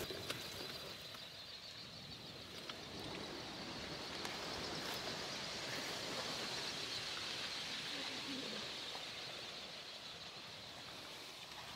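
A very large flock of mallards wheeling low overhead: a steady rush of many beating wings, with a few scattered calls mixed in.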